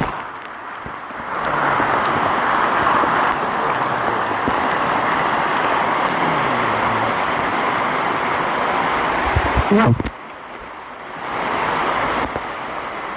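Steady rushing of a waterfall, heard through a phone's water-resistant bag, dropping away briefly near the start and again about ten seconds in.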